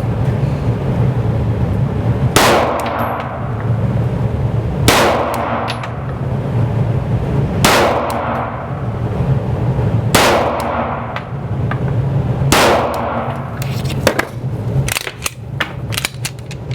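Five shots from a Glock 19 9mm pistol firing Kinetic Range reloaded ammunition, slow fire about two and a half seconds apart, each ringing out in the echo of an indoor range. Several lighter clicks follow near the end, over a steady low hum.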